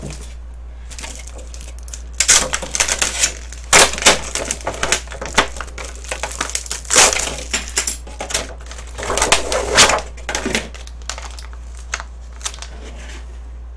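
Plastic wrapping and the clear plastic lid of a packaged lunch box being pulled off and crumpled by hand, crinkling in irregular rustles, loudest in a few bursts.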